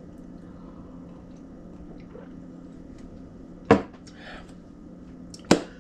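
Quiet kitchen with a steady low hum, broken by two sharp knocks about two seconds apart: a glass set down on the counter, then another knock on the counter.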